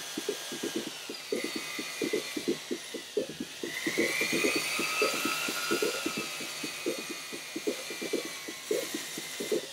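Electric drill running with a whine that sags in pitch about three and a half seconds in, then climbs again, while 80-grit sandpaper scrapes in quick rhythmic pulses against a wooden knob spinning on the drill bit, sanding off old caked-on stain.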